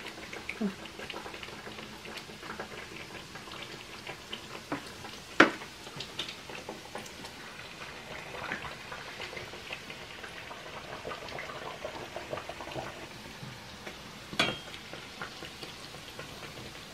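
Gorditas deep-frying in hot oil in a stainless steel pan: a steady sizzle full of small crackling pops. Two sharp knocks stand out, the loudest about five seconds in and another near the end.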